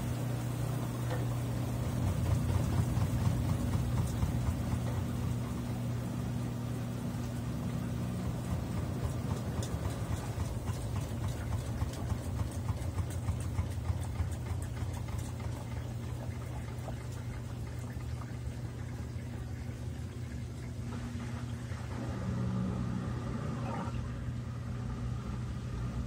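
Consul 13 kg top-load washing machine spinning a heavy load of wet towels: a steady low motor hum with a rushing noise, a little louder near the end.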